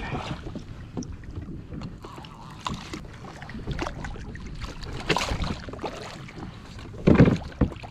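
Water and wind noise around a fishing kayak at sea, with scattered light knocks and a louder thump about seven seconds in.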